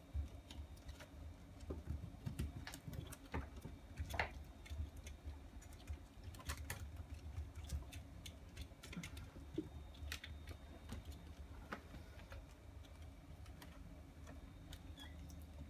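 Light, scattered taps, scratches and knocks from one-month-old kittens playing, their paws and claws on a play rug and bumping small toys, over a low steady hum; one sharper knock about four seconds in.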